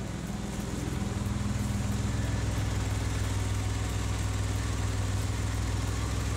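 Car engine idling steadily, its tailpipes packed with rags so the blocked exhaust gas is forced out of any leak. A low, even hum.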